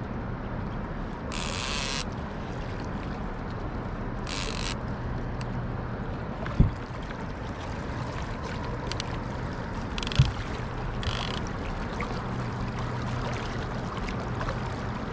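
Wind and river noise on an anchored fishing boat, with a steady low engine hum underneath and a few short hissing bursts. Two sharp knocks stand out, about three and a half seconds apart.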